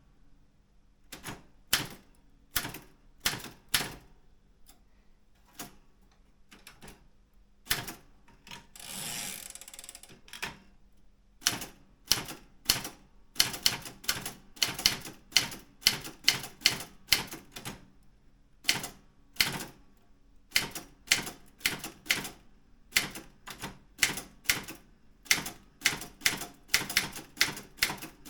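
Daro Optima M16 manual typewriter being typed on, with sharp key strikes. They come slowly and unevenly at first, then pick up to a steady pace of about two to three a second. About nine seconds in there is one longer, noisy sliding sound lasting a little over a second.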